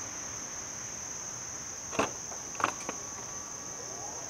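Tesla Model X falcon wing door unlatching with two sharp clicks about two seconds in, then a faint motor whir as the door starts to rise. A steady high insect chorus runs underneath.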